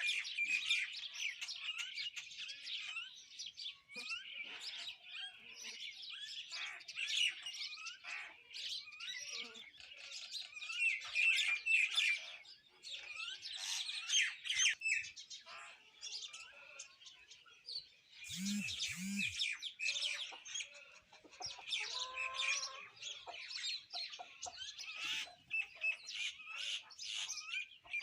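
Common mynas and house sparrows chirping in a dense, continuous chorus of short overlapping calls, thinning out briefly just past the middle. Two short low-pitched calls come about two-thirds of the way through.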